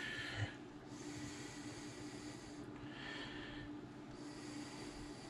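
A person breathing through the nose close to the microphone, in slow alternating in-and-out breaths of about a second each. A faint steady hum runs underneath, with a light knock about half a second in.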